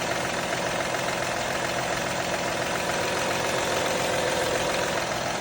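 Honda Odyssey's J35Z8 3.5-litre V6 idling cold with a steady knock, a cold-engine knock whose cause the owner cannot identify.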